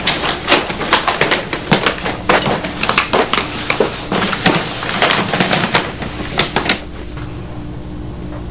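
Whispering: a run of soft, breathy syllables with no voiced pitch that stops about seven seconds in, leaving a low steady room hum.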